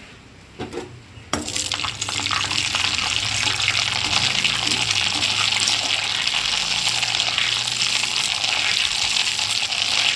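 Poppy seeds frying in hot mustard oil in a kadai: a steady, dense sizzle that starts suddenly about a second in.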